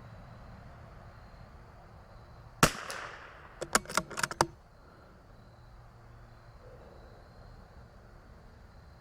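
A single shot from a CZ 457 .22 LR bolt-action rifle, with a short trailing report, followed about a second later by a quick run of sharp metallic clicks as the bolt is worked to eject the case and chamber the next round.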